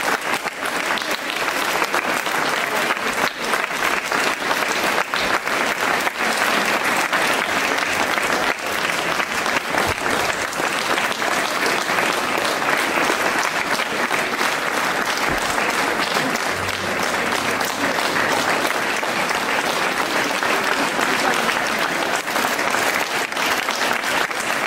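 A large crowd applauding steadily: many hands clapping at once, without a break.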